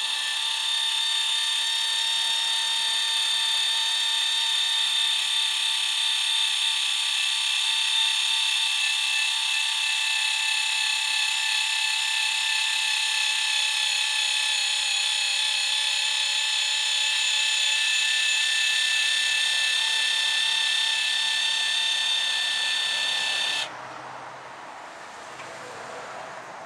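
Electric motor of a 12-volt linear actuator with a 12-inch stroke, running with a steady high whine as it pushes the snow plow blade around to an angle. It cuts off suddenly near the end.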